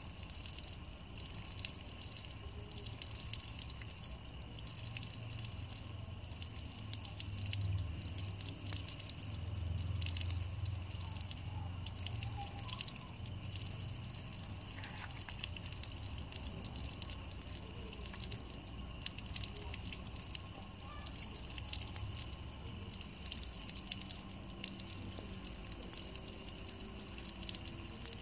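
Water dripping and trickling off a wet rock wall, a steady patter of small drops. A low rumble swells up about a third of the way in and fades again a few seconds later.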